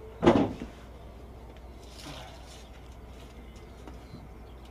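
A single short thump about a quarter second in, then a faint rustle about two seconds in: a ground crewman handling the wheel chocks and red safety straps under an F-16's landing gear.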